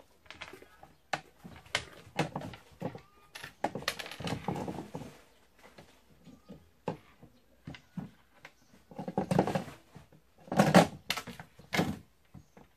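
Irregular knocks, thunks and scuffs of things being bumped and moved, with a few louder short bursts about nine to eleven seconds in.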